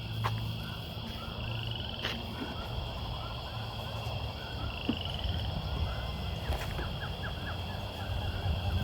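A background chorus of many small, rapidly repeated animal chirps, with a steady high whine and a couple of brief rising trills over a low rumble.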